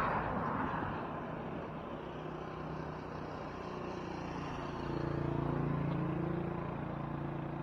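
Road traffic on a bridge: a steady hiss of passing vehicles, with a motor vehicle's engine hum swelling about five seconds in and easing off near the end.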